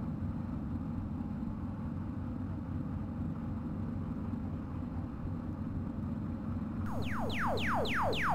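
Steady low rumble. Near the end, synthesized electronic sweeps break in, each falling quickly in pitch, repeating faster and faster.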